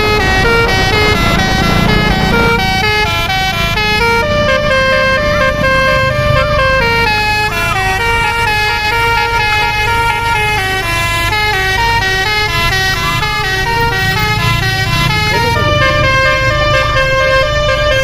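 Telolet horn on a Jetbus 3+ coach: a set of multi-tone air horns playing a tune of stepped notes, over the coach's engine and road rumble.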